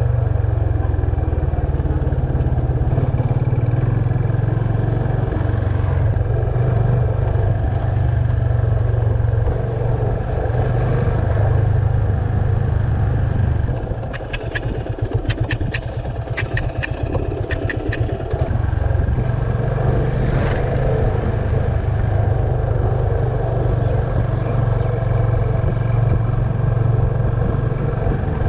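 Yamaha FZ25 motorcycle's single-cylinder engine running steadily as the bike is ridden. About halfway, the engine note drops for a few seconds while a run of sharp clicks sounds.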